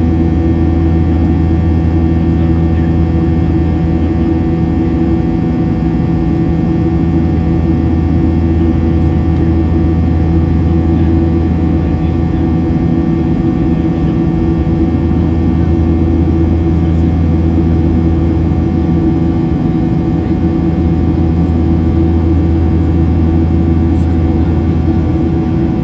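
Steady cabin drone of a Boeing 737-800 in flight, heard from a window seat over the wing: the CFM56-7B turbofans' low, even hum with a few steady tones and no change in level.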